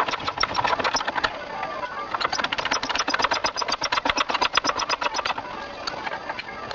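Hand pump of a hydraulic press being worked, giving a rapid, even clicking of about eight to ten strokes a second. The clicking stops for about a second, starts again, and stops about a second and a half before the end.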